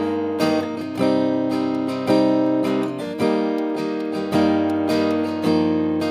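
Acoustic guitar strummed in a slow, steady rhythm, a chord struck roughly once a second, playing the introduction to a ballad before the singing starts.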